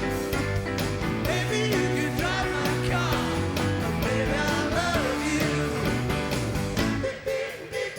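Live rock band playing loud amplified rock and roll with electric guitars, bass and drums. The music thins out briefly about seven seconds in.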